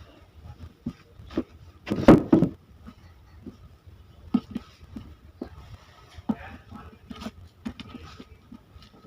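Irregular knocks and clatters in a small room, loudest in a cluster about two seconds in.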